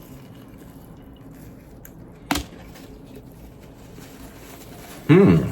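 Soft, wet chewing of a mouthful of grilled cheese sandwich. There is a single sharp click a little over two seconds in, and a short hummed vocal sound near the end.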